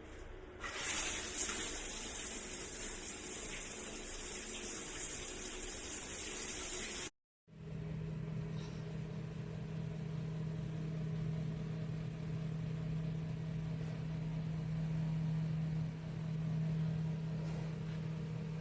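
Steady rush of running water. It cuts off abruptly about seven seconds in and resumes with a steady low hum underneath.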